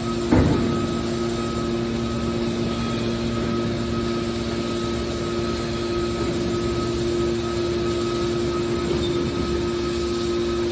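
Scrap-metal car baler running with a steady machine hum from its hydraulic power unit, and one loud metal knock about half a second in.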